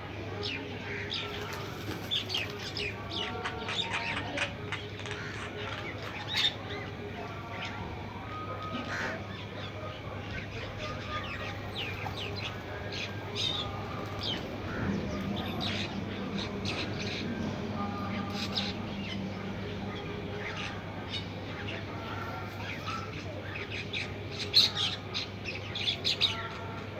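Small birds chirping, with many short, high chirps scattered throughout over a steady low hum.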